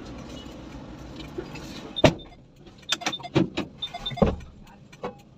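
Heavy cast-iron truck brake drums being handled and set down one by one while the load is taken off the cargo bed, heard from inside the cab. About four heavy thuds with a metallic ring come between two and four and a half seconds in, over a low steady hum.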